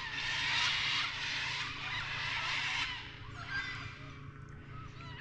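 Water sloshing against a kayak hull, fading about three seconds in, over the steady low hum of an electric trolling motor. Faint bird calls come in during the second half.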